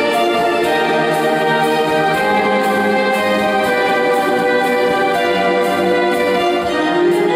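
Yamaha electronic keyboard playing instrumental music in orchestral voices: sustained chords and a melody over a steady light beat.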